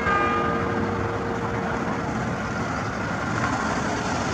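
A tower bell struck once, ringing and fading away over about two seconds, over steady street traffic noise.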